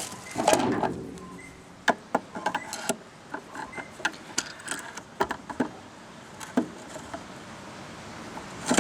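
Scattered small clicks and taps of a screw and screwdriver on the plastic case of a Makita DMR110 radio as a case screw is started loosely during reassembly, with a louder rustle of handling about half a second in.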